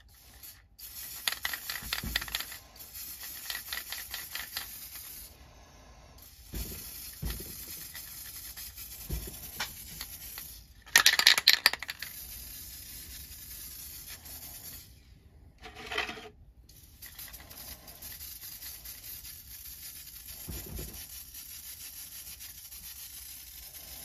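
Aerosol spray can of black paint hissing in long sprays with short pauses between them, crackling and spitting in places, with one loud rattling burst about eleven seconds in. The can is running low on paint.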